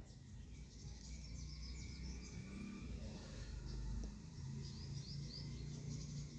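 Birds chirping in quick short calls over a steady low rumble.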